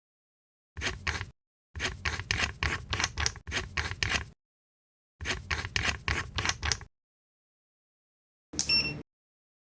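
Bursts of rapid, scratchy clicking from a multimeter's test leads and probes being handled and connected, followed near the end by a short high electronic beep from the meter.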